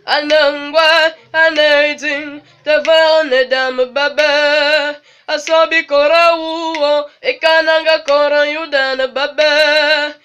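A young person singing solo without accompaniment, in phrases of one to two seconds with short breaks, the held notes wavering with vibrato.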